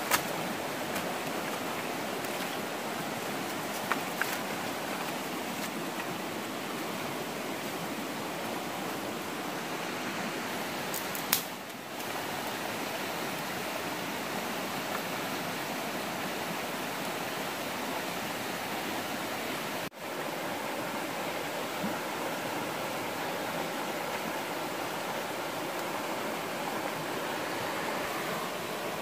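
Steady rushing of a river flowing fast over rocks, with a few brief sharp clicks along the way.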